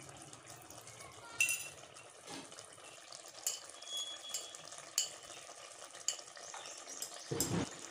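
A metal spoon stirring and scraping through masala paste and tomato halves frying in oil in a pan, with a low sizzle under it and a few sharp clicks of the spoon against the pan.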